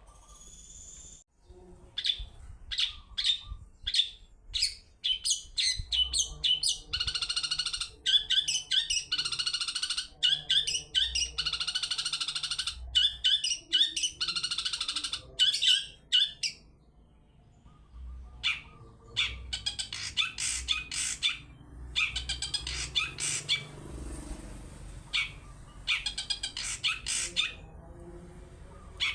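Long-tailed shrike (cendet) singing: fast, harsh chattering phrases and sharp repeated notes in loud bouts, with a short lull about two-thirds of the way through.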